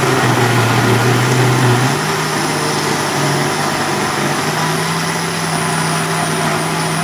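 Electric countertop blender running steadily, grinding a wet paste of chillies, garlic, shallots and galangal with water. Its hum steps up in pitch about two seconds in and holds there.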